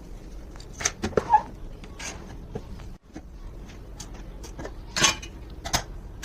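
Small hard clicks, taps and short scrapes of repair tools working on a smartphone, a handful at irregular moments, the loudest about five seconds in.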